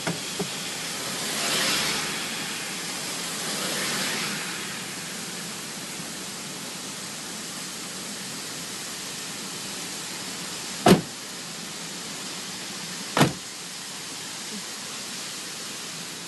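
Steady rushing noise of torrential rain and running water heard from a stopped car, swelling twice in the first few seconds. Two sharp knocks about eleven and thirteen seconds in.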